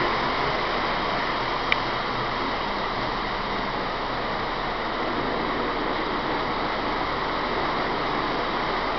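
Steady rushing rumble of model trains running on the layout's track, with one short click about two seconds in.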